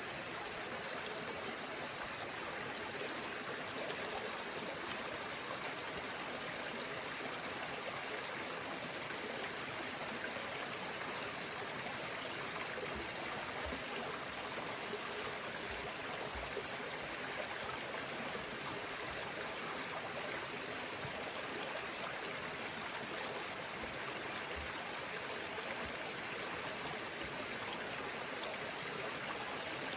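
Water flowing steadily, an even unbroken rush.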